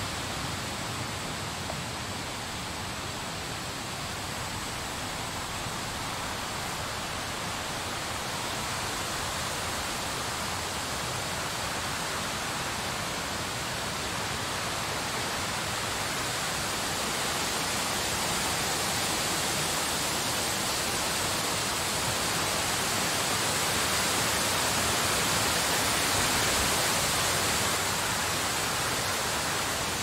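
Blizzard wind blowing as a steady rushing noise, growing a little louder past the middle and easing slightly near the end.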